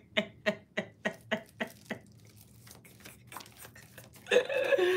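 A woman laughing in a quick, even run of short 'ha' syllables that fade out about two seconds in. Near the end comes a drawn-out vocal sound that slides down in pitch.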